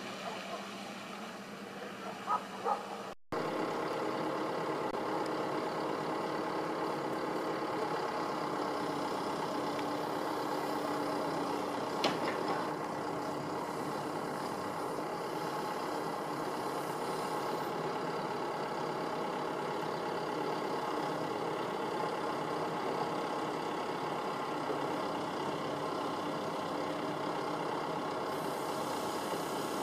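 Diesel engine of a Hidromek backhoe loader running steadily as it digs, with one sharp clunk partway through. The first few seconds are quieter, with a few short knocks.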